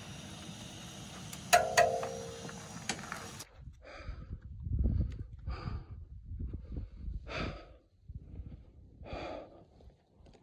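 A ladle clanks once against a large metal cooking pot over a steady hiss. Then a climber breathes hard on a high-altitude snow slope, four heavy breaths about two seconds apart, with wind rumbling on the microphone.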